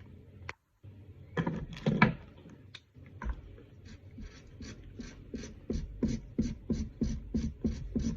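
Marker colouring in back-and-forth scribbles: a few rough strokes at first, then a steady run of short scratchy strokes about three a second in the second half.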